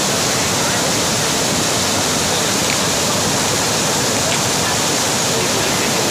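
Mountain stream in flash flood after heavy rain, its water rushing loud and steady over rocks.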